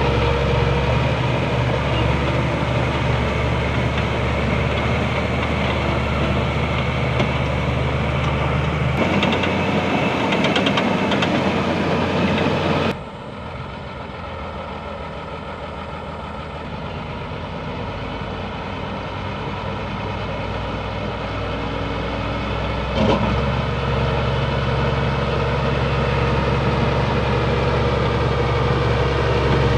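Bulldozer's diesel engine running steadily. The sound changes abruptly about 9 and 13 seconds in. After the second change it is quieter and slowly builds again, with a single sharp knock about 23 seconds in.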